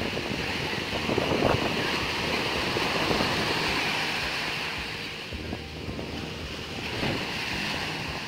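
Sea surf breaking and washing up the sand in a steady rush, louder in the first half and easing off after about five seconds, with wind rumbling on the phone's microphone.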